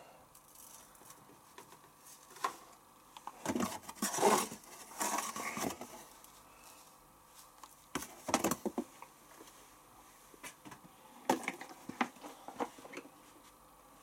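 Hands handling detergent packaging beside a washing machine: short, irregular bouts of rustling and scraping with a few light clicks and knocks, loudest in the first half and again near the end.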